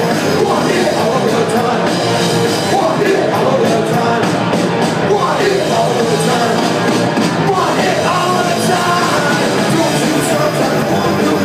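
Punk rock band playing live at full volume: a singer shouting the vocal over distorted electric guitar, bass and drums.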